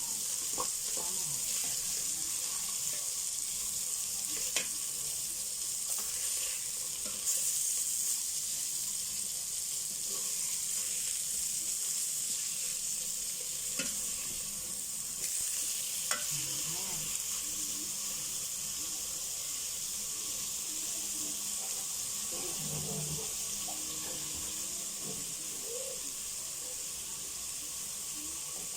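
Pieces of red snapper (maya-maya) frying in hot oil in a pot with sautéed onion, ginger and garlic: a steady sizzle, with a few light clicks.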